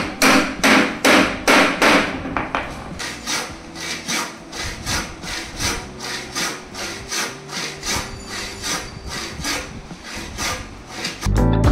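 Handsaw cutting through a small block of wood in steady back-and-forth strokes, about two to three a second, heaviest in the first couple of seconds. Music comes in just before the end.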